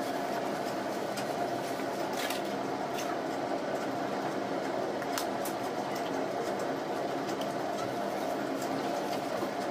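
A steady background hum, even throughout, with a few faint light clicks scattered through it.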